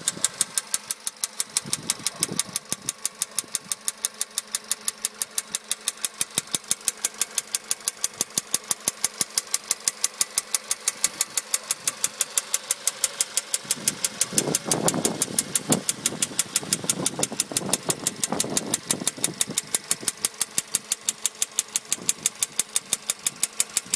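Volkswagen Polo Sedan's 1.6 CFNA four-cylinder petrol engine idling warm with a rapid, even knock, about five a second. The knock persists after a warranty piston replacement, and its cause is unknown to the owner. A louder, lower sound rises for a few seconds around the middle.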